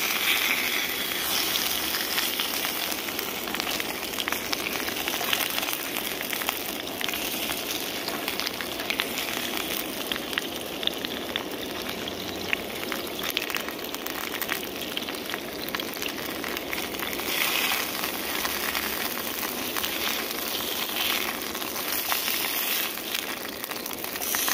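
Thin-sliced potatoes shallow-frying in hot oil in a small camping frying pan, making homemade crisps: a steady sizzle dotted with many small crackles and pops.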